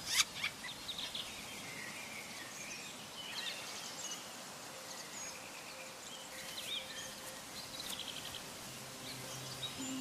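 Woodland ambience: a steady background hiss with scattered short chirps and whistles of small birds.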